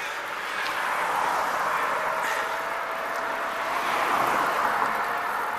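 Wind and tyre noise from riding an electric bike along a road, a steady rushing hiss. About two seconds in, a thin steady whine comes in and rises slightly in pitch.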